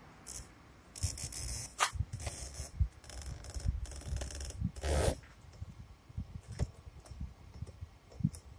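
Fingertips rubbing and pressing along a plastic spoiler lip to bed it onto its adhesive tape, in irregular scuffs and rustles, the loudest about five seconds in.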